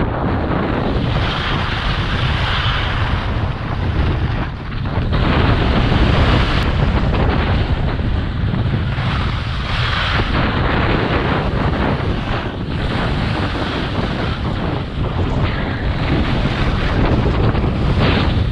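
Wind noise buffeting the microphone of a skier moving downhill, a steady rumble, with the hiss of skis sliding and carving over packed snow that swells and fades with the turns.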